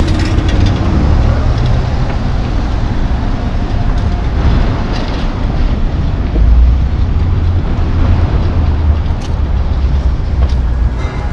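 Wind buffeting the microphone as a loud, gusting low rumble, over the steady noise of road traffic.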